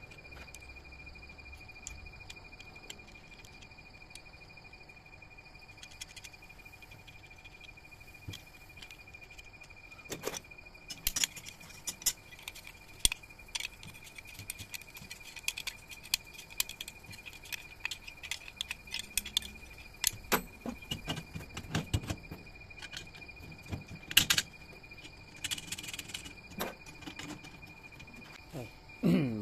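Metal clinking and knocking as a homemade steel sliding carriage with bolted ball-bearing rollers is handled, its bolts worked with a tool, and it is fitted onto its steel rail. The clicks begin about a third of the way in and come thicker toward the end, under a steady high-pitched tone.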